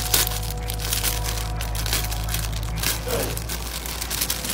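Plastic crinkling and crackling in irregular handling noises, over a steady low hum.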